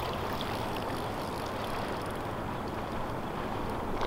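Steady rushing noise of churning spillway water around the boat, even throughout, with no distinct events.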